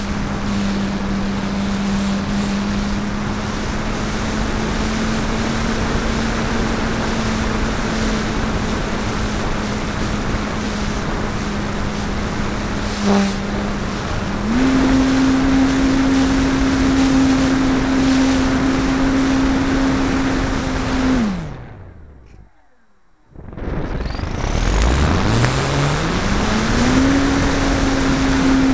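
The brushless electric motor and propeller of a Parkzone P-51D Mustang RC plane, heard from a camera on its canopy, running at a steady pitch under loud rushing air. The pitch steps up about halfway through. Near three-quarters of the way in, the motor is throttled back and winds down to almost nothing for a second or two, then spools back up in a rising whine to full power.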